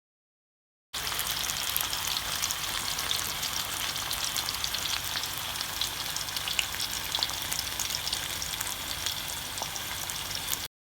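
Food sizzling as it fries in hot oil in a pan, a steady hiss thick with small crackling pops. It cuts in abruptly about a second in and cuts off just as abruptly near the end.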